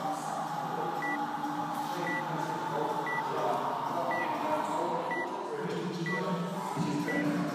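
Workout timer beeping a short, high countdown beep once a second, seven times, counting down to the start of a timed workout.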